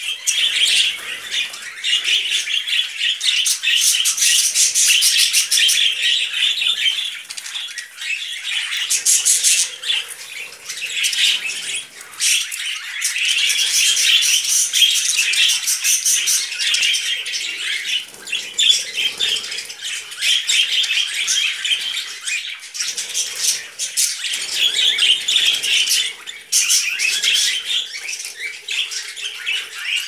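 A flock of budgerigars chattering and warbling without a break, a dense mix of quick chirps and clicks.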